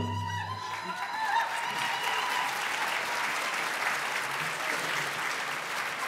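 The last drumbeat and held sung note of a hand-drum song, the voice fading over the first couple of seconds, and the audience applauding from about a second in.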